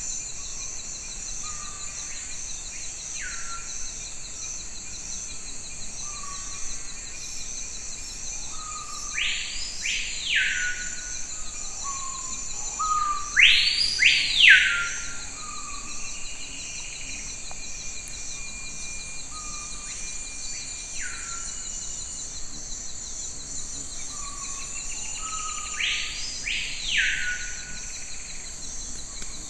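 Forest ambience: a steady high insect drone, with birds calling over it. The loudest calls are quick sweeping whistles that rise and fall, heard three times, with shorter, lower chirps scattered between.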